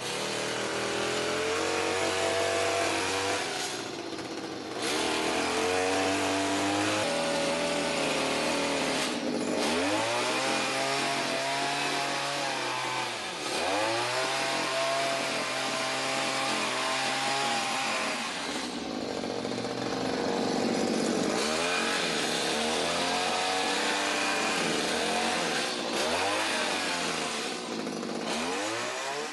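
Stihl HS45 hedge trimmer's two-stroke engine running at high throttle while cutting a hedge, its pitch dipping and climbing back several times as the throttle is eased off and reopened. It is running well with its ignition coil reinstalled and its air gap set.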